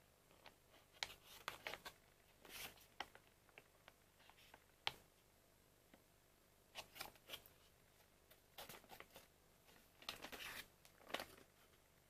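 Faint crinkling and crackling of a thin plastic salami package as hands handle and turn it over, in scattered short crackles with a sharp click about five seconds in.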